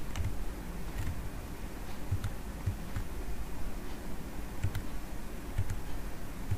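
Computer mouse clicking, single clicks at irregular intervals, over a steady low background hum.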